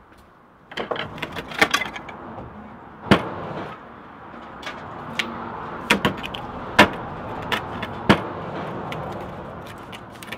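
The charred metal motor assembly of a burnt-out Kenwood Chef A701 mixer being picked up and turned over on a workbench: a run of irregular knocks, clicks and clatters of metal parts against the bench.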